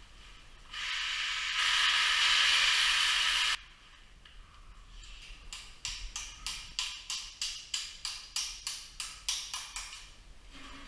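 Aid-climbing work on the rock overhead: a loud hiss of about three seconds that grows a step louder and then cuts off suddenly, followed by a run of sharp, evenly spaced strikes, about three a second.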